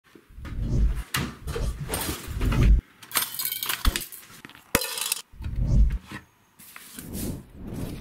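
A run of kitchen handling sounds: a cupboard door being opened, metal cutlery clattering as it is pulled from a drying rack about three seconds in, and sharp clicks, knocks and thumps between.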